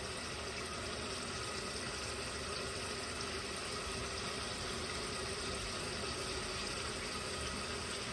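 A pot of dal (lentils) boiling on the stove, a steady, even hiss with froth rising on the surface.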